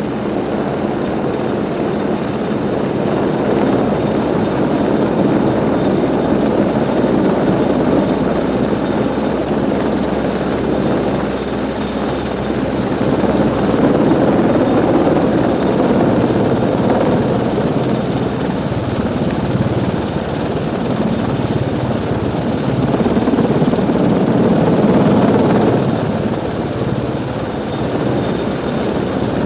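Large five-bladed military helicopter hovering close by: steady rotor and turbine noise that swells and eases slowly, with a faint high whine above it.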